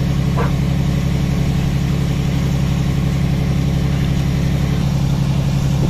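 Fishing boat's engine running steadily, a constant low drone with a strong hum that does not change pitch.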